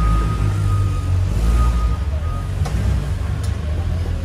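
Forklift running: a steady low engine rumble, with a long, high warning beep that sounds twice in the first couple of seconds.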